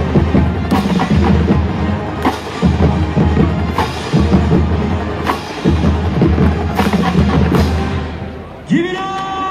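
Music with a steady drum beat and sharp percussive hits about every second and a half. Near the end the beat stops and held tones begin, sliding up as they start.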